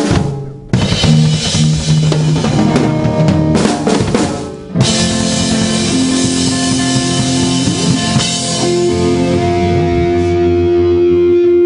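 A heavy metal band plays live in a small rehearsal room, with drum kit (bass drum, snare, cymbals) and distorted electric guitars. The playing breaks off briefly about four and a half seconds in, then starts again. It ends on sustained, ringing guitar notes.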